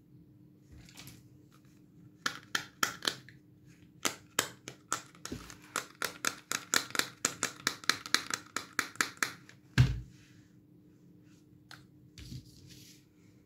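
Pink plastic toy hair dryer clicking as it is worked by hand: a run of sharp plastic clicks that speeds up to about three or four a second, ending with one louder thump near the end.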